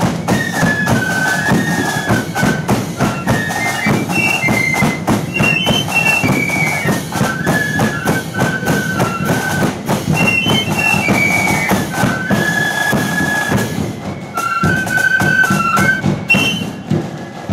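A marching flute band playing a tune in unison on side-blown flutes, the melody stepping up and down in a high register. Drum strokes keep the march beat underneath.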